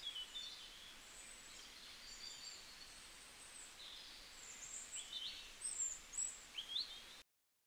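Birds chirping and whistling in short, high calls and trills over a faint steady hiss, with a few louder chirps near the end; the sound cuts off abruptly just before the end.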